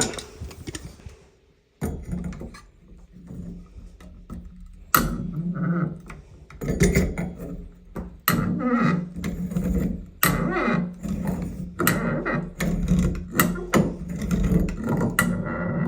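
Channel-lock pliers working on a stuck shower valve sleeve: repeated metal clicks, knocks and scraping as the jaws grip and slip while the sleeve spins instead of unscrewing, over a steady low hum.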